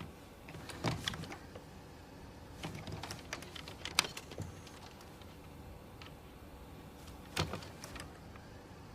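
A few scattered soft clicks and knocks over a faint background, with a sharp click about four seconds in and a louder knock about seven and a half seconds in.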